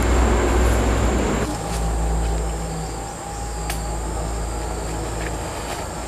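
Insects droning steadily at a high pitch over a low rumble. The rumble is heavy for the first second and a half, then drops abruptly to a lighter level, with a few faint clicks later on.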